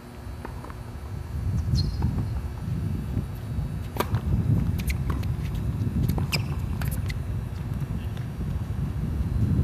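Wind buffeting the microphone with a heavy rumble, and the sharp crack of a tennis racket striking the ball on a serve about four seconds in. A few fainter clicks of the ball bouncing and being hit follow over the next few seconds.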